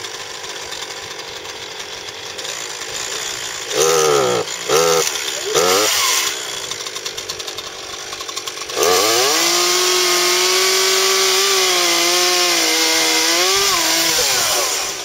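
Chainsaw running, blipped three times in quick rising-and-falling revs, then held at high revs for about five seconds, its pitch wavering before it drops back.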